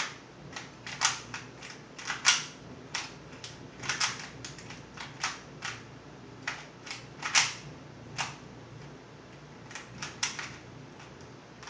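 Plastic Rubik's cube being turned by hand during a solve, its layers clicking and clacking in short irregular bursts, with a brief pause near the end.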